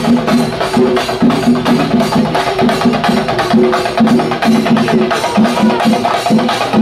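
A procession drum band, cylindrical Kerala drums of the chenda kind, played with sticks in a fast, steady rhythm. Sharp stick strokes ride over a pulsing drum tone.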